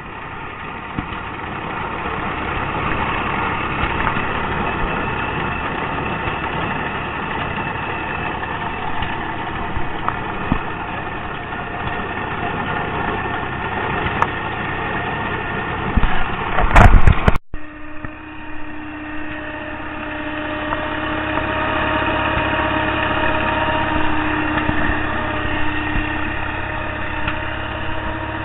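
Farm equipment engine idling steadily. About two-thirds of the way through there is a brief burst of loud knocking, then an abrupt cut, after which the engine goes on as a steadier hum.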